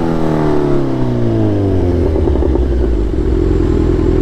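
Kawasaki 900 motorcycle engine, very loud, with its revs dropping away over the first two seconds and then settling into a steady, deep idle.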